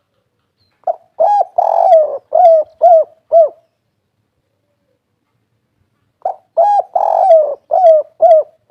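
Spotted dove (derkuku) cooing in the 'kuk 3' song style: two phrases of about six short, rising-then-falling coos each, a few seconds apart, the second cut off at the end.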